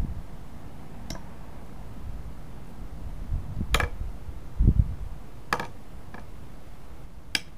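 Claw hammer driving a nail into a wooden board: several slow, separate blows, sharp metallic clicks mixed with duller thuds.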